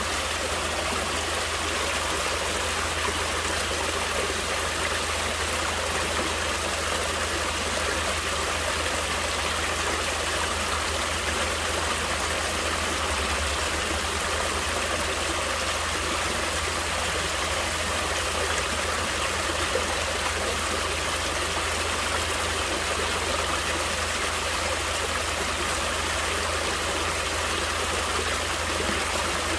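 Stream water running steadily over rocks, a constant rushing and splashing with no change in level.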